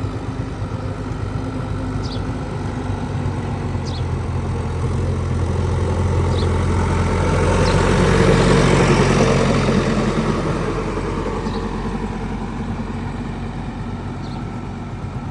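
Diesel engine of a heavy work machine running steadily with a low hum, swelling louder about halfway through and then easing off.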